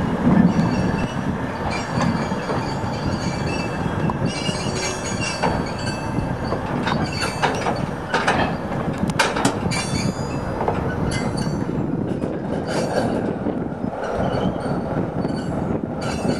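ChME3 diesel-electric shunting locomotive running as it moves a passenger carriage slowly past, its engine rumbling steadily under high wheel squeal. A run of sharp clicks from the wheels comes about halfway through.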